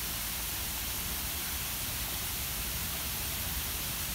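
Steady rushing of water spilling over rocks in a small stream, an even hiss with a low rumble beneath.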